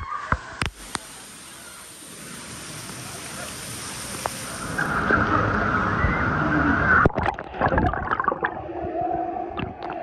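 Churning river water sloshing and splashing right at the microphone, with a few sharp splash hits early on and a run of louder splashes about seven to eight seconds in. Near the end the sound turns muffled, with a steady hum, as the microphone goes under water.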